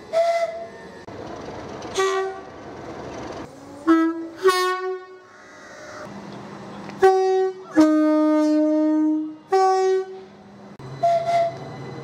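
Two-tone horn of a Southern Class 377 Electrostar electric train sounding a run of short toots in alternating high and low notes, about eight in all, with one longer low blast of about a second and a half after the middle.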